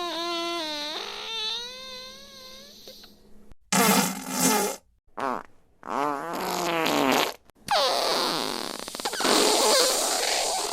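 A string of separate fart sound effects. First a long squeaky, pitched one that fades out about three seconds in, then a short loud burst and a brief blip. After those come a rasping one with a wavering pitch and, near the end, a longer noisy one.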